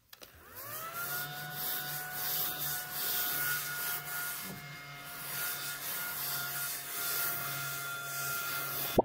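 Small battery mini desk vacuum, shaped like a mushroom, running: its little motor whirs up to speed in the first moment, then holds a steady high whine over a hiss as it is slid across a leather desk mat.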